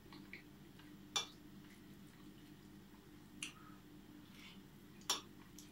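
Fork clinking against a plate three times, about two seconds apart, as food is scooped up to eat.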